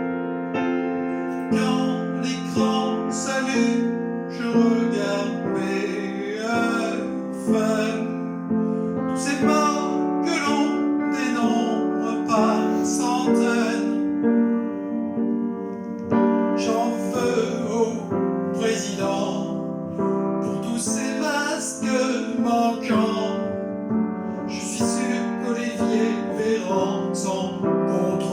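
A keyboard plays a slow song, and a voice comes in singing over it about a second and a half in, pausing briefly around the middle.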